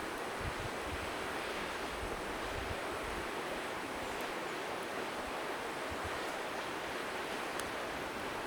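Steady rushing of river water, with occasional low wind buffeting on the microphone and a few faint crackles from the bonfire late on.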